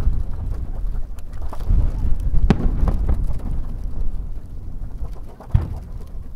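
Aerial firework shells bursting: low booms that rumble on, with sharp reports about two and a half seconds in and again near the end.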